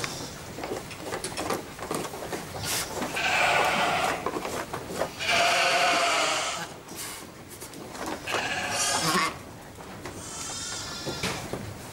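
Sheep bleating, about four long bleats, with short knocks and rustling between them.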